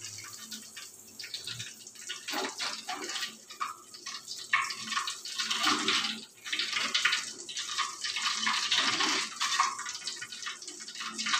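Hot oil sizzling and crackling in a wok as fried tofu is lifted out and drained in a wire strainer over the pan.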